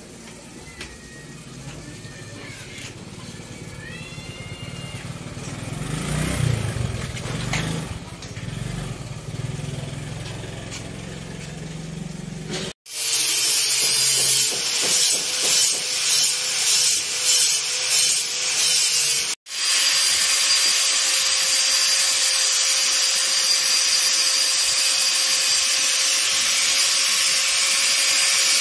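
Angle grinder cutting and grinding the steel bars of a dog-cage frame: loud and gritty with a steady whine, in about six short passes at first and then running continuously. Before it comes a stretch of quieter rubbing and handling sounds.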